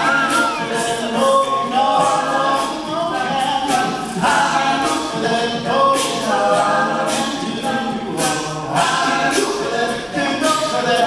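All-male a cappella group singing a pop song in close harmony, lead voice over backing voices, with a steady beat of vocal percussion.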